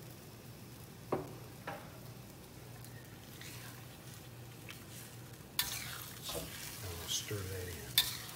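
A metal wok spatula scraping and clanking in a hand-hammered wok, stirring ground beef and zucchini slices that sizzle in a little water. Two light knocks come about a second in, and the stirring starts a little past halfway.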